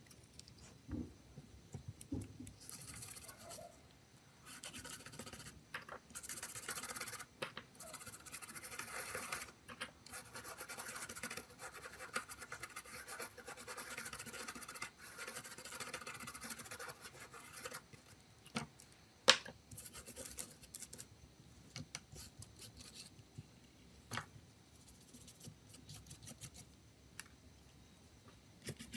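Close, repeated scratching and scrubbing on a small hard object, done by hand, in uneven stretches. A few sharp clicks come in the second half, the loudest about two-thirds of the way through.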